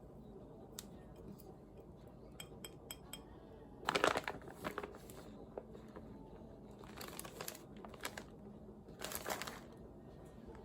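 Plastic food packaging crinkling in three bursts, the loudest about four seconds in and others around seven and nine seconds, with a few light clicks before.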